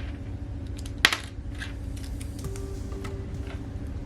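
Plastic LEGO pieces clicking and clattering as they are handled and snapped together, with one sharp click about a second in.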